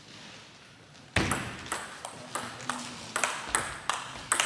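A table tennis rally: the plastic ball clicks sharply off the bats and the table in quick alternation, about three clicks a second, starting about a second in.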